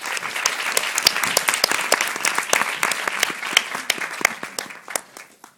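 Audience applauding, dense clapping that builds quickly and dies away near the end.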